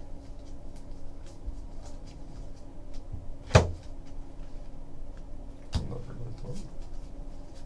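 Trading cards and packaging being handled on a table: faint flicks and ticks throughout, with a sharp knock about three and a half seconds in and a softer knock a couple of seconds later.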